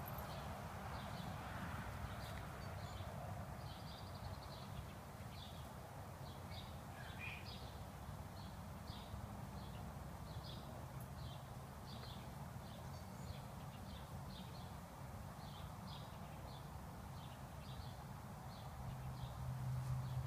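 A bird's short high chirps, repeated about twice a second, with one short falling whistle about seven seconds in, over a low steady outdoor hum.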